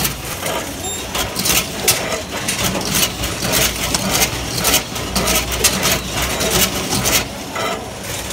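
Staalkat Sanovo 192S egg packer running with an Egg-Flex stamping unit coding eggs: a steady low machine hum with sharp clicks and clatter about twice a second.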